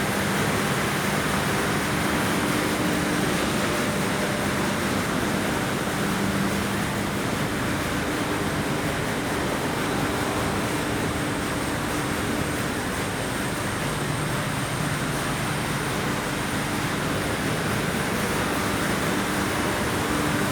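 An engine running steadily: a constant mechanical drone with a faint hum that wavers a little in pitch.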